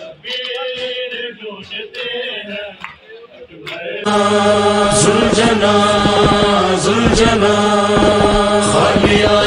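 Group of men chanting a Shia mourning lament (noha). About four seconds in it becomes much louder and clearer, with long held notes over a regular beat.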